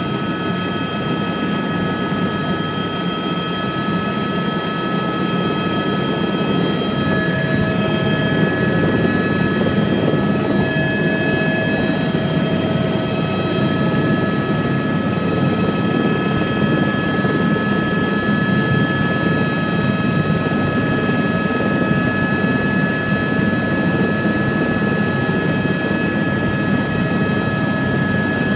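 Helicopter's turbine engine and rotor running steadily on the ground, heard from inside the cabin: a dense low rotor rumble with a steady high turbine whine over it, growing a little louder about seven seconds in.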